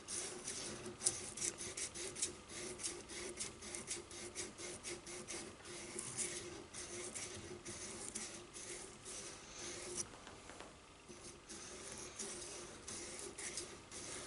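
600-grit sandpaper worked by hand on a rod in the throat and feed ramp of a 1911 .45 barrel, rubbing out tool marks and scratches. Quick, rasping back-and-forth strokes, about three a second, growing sparser after about ten seconds.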